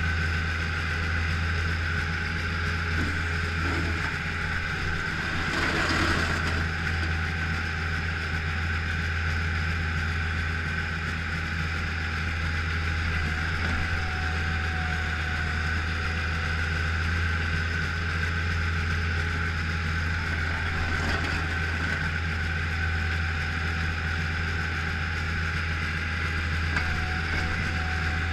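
Bobcat skid-steer loader's engine running steadily while plowing snow, heard from the operator's cab: a constant low drone with a steady high whine. A brief louder rush of noise about six seconds in.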